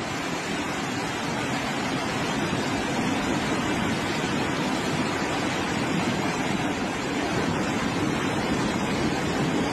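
Steady rushing noise of a mudslide's debris flow: muddy water running over rocks and rubble.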